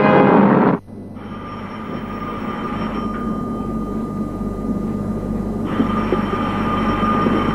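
Brass-led orchestral music cuts off abruptly under a second in, giving way to a steady hiss of radio static with a thin, high whistling tone, slowly growing louder.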